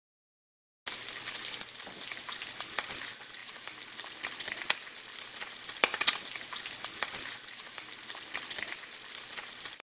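Food frying in a hot pan: a dense sizzle full of crackles and sharp pops that starts abruptly about a second in and cuts off suddenly just before the end.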